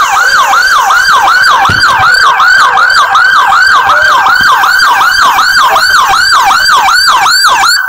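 Siren in rapid yelp mode, very loud and close, sweeping up and down about three to four times a second, then cutting off abruptly near the end.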